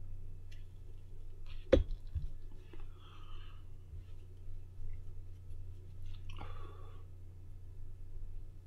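Low steady electrical hum with one sharp click a little under two seconds in, and two soft breathy or rustling noises, about three and six and a half seconds in.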